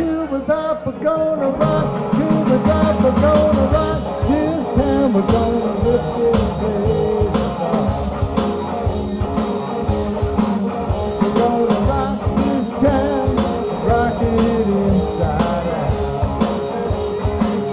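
Live rockabilly band playing an instrumental stretch: electric guitars, bass and drums. The drums and bass drop back for about the first two seconds under a guitar line, then the full band comes back in with a steady beat.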